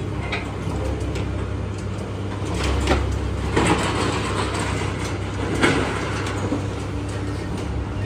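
Steel conveyor-belt slats clanking and scraping now and then as a new baler belt is worked into place, the sharpest knocks about three, three and a half and five and a half seconds in, over a steady low machine drone.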